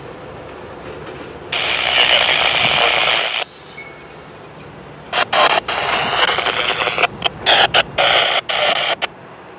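Railroad radio transmission heard over a scanner, with a thin, narrow-band sound. There is one burst about one and a half seconds in lasting about two seconds, then a choppy, broken transmission from about five seconds in until near the end.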